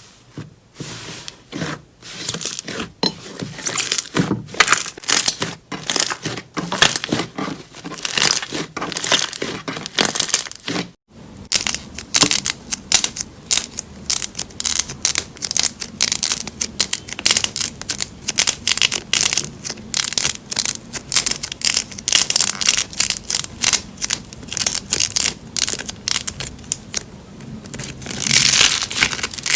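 Crunchy slime being squeezed and pressed by hand, giving dense, rapid crackling and popping. A short break about eleven seconds in, then more of the same, faster crackling.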